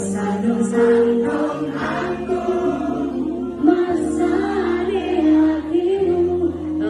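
Live band music with many voices singing the melody together, a crowd singing along with the band.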